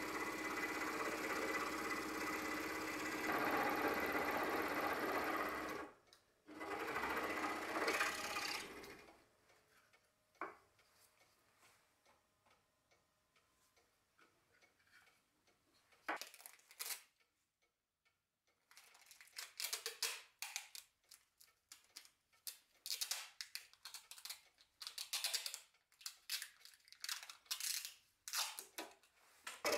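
Scroll saw running as its blade cuts a Manchurian walnut block. It stops about six seconds in and runs again for a couple of seconds. Later come short, irregular rips of packing tape being pulled off the roll.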